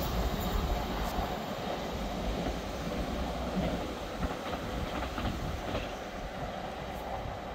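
Class 197 diesel multiple unit running away along the line, its engine and wheel rumble fading steadily as it recedes.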